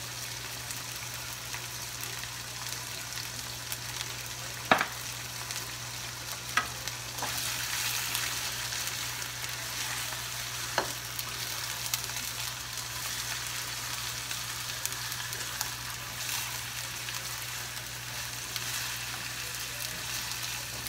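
Chicken pieces sizzling steadily as they brown in a nonstick frying pan, while a spatula turns them, with three sharp clicks of the utensil against the pan.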